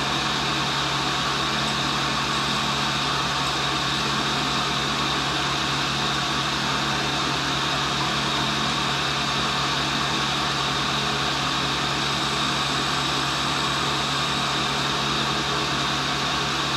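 Tool and cutter grinder running steadily, its motor and abrasive wheel giving an even hum with a thin high whine.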